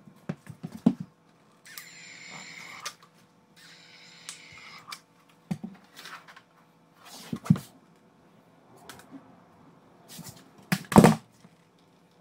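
Shoe molding being handled and pressed into place against the base of a cabinet, with scattered light knocks and two short stretches of steady hiss. Near the end a 23-gauge pin nailer fires twice in quick succession with sharp, loud snaps.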